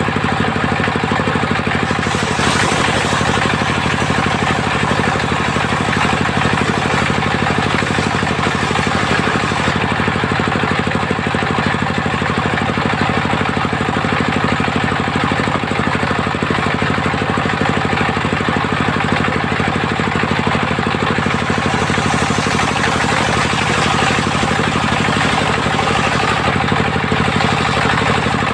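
Engine driving a mobile circular sawmill, running steadily without a break. The sound turns somewhat brighter for a few seconds near the end.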